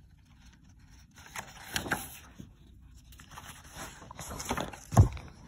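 Pages of a paperback picture book being turned and handled: dry paper rustling in two short stretches with small clicks, then a dull thump near the end.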